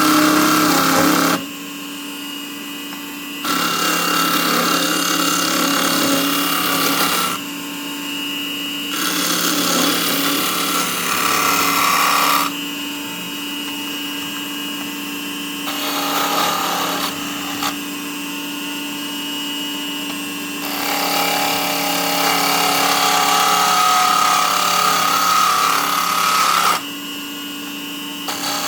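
Small benchtop wood lathe running with a steady motor hum while a turning tool cuts the spinning wood in repeated passes. The cutting noise stops and starts several times, a second or more apart.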